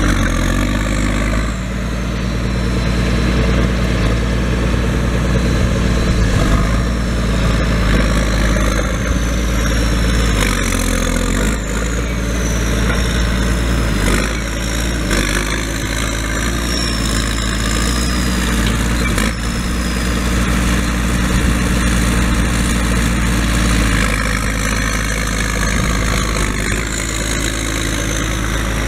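The Case A504BDT six-cylinder turbo diesel of a 1977 Case 1570 tractor idling steadily. A faint high whistle drifts up and down through much of it.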